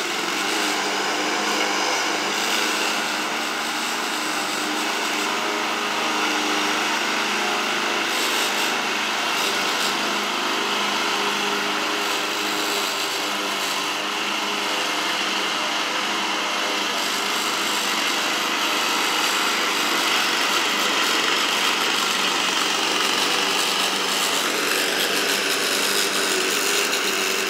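Walk-behind gasoline lawn mower running steadily while cutting grass.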